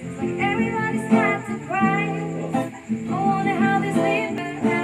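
Music: guitar chords under a singing voice carrying a slow melody.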